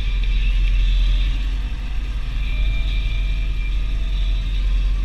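Deutz DX 4.70 tractor's air-cooled diesel engine running steadily while pulling a slurry tanker, heard from inside the cab, with a steady high hiss above the deep engine rumble.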